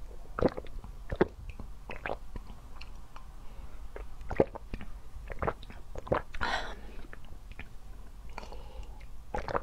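Close-miked gulps and swallows of a grape-flavoured drink with fruit pieces, drunk from a glass mug: irregular wet mouth and throat sounds, one every half second to second or so.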